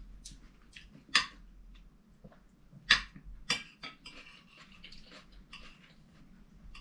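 Forks and a spoon clinking and scraping on china plates as two people eat, with three sharper clinks about one, three and three and a half seconds in.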